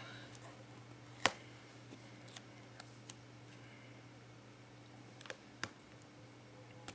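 Faint scattered clicks and taps of fingertips and fingernails working at a paper sticker on a planner page, with one sharper click about a second in, over a low steady hum.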